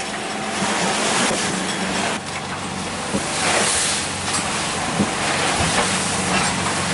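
Wind and breaking waves around a sailing yacht beating into a rough sea, with spray dashing against the boat in several sudden surges, over the steady hum of the yacht's engine.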